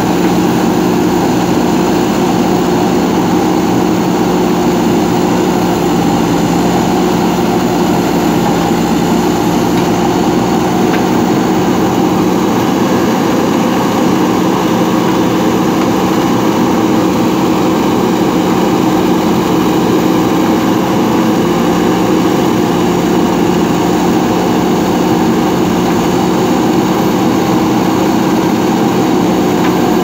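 JCB 3DX backhoe loader's diesel engine running steadily while the backhoe arm digs and lifts soil, with a constant low drone.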